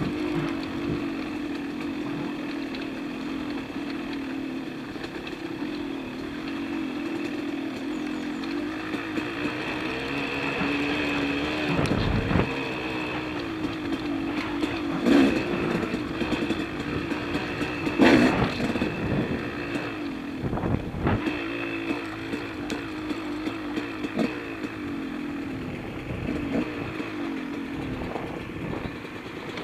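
Dirt bike engine running as it is ridden along a trail, its pitch wavering up and down with the throttle, with a few brief louder revs partway through.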